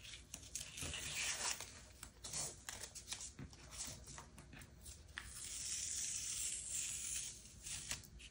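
Masking tape being peeled off the edges of paper: faint crackling, tearing rasps and small clicks, with a longer steady peel about two-thirds of the way through.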